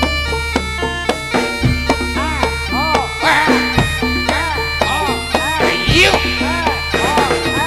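Javanese jaranan accompaniment: a shrill reed horn playing a bending melody over steady ringing metallophone tones and drum, with a deep low stroke about every two seconds.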